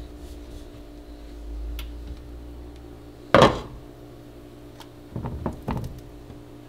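The glass lid of a frying pan is lifted off and set down with one sharp clank about three and a half seconds in, followed by a few lighter knocks near the end, over a steady low hum.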